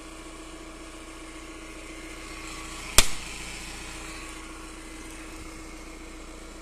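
A coconut smashed once on the ground about three seconds in: a single sharp crack. Under it, the steady hum of the Audi A4's engine idling.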